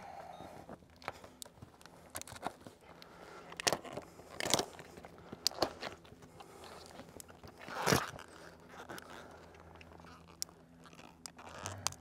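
Old rubber pipe boot and its metal flange being pulled and peeled up off its bed of cured caulk on a metal roof panel: irregular crunching and crackling with a few sharper pops, the loudest about eight seconds in.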